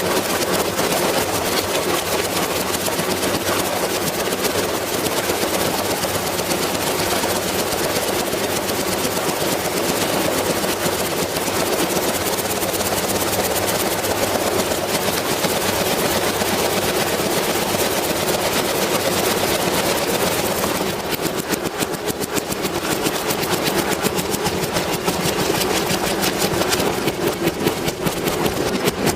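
Whirlpool washing machine running, a loud steady mechanical rattle. About two-thirds of the way through it turns duller and more uneven.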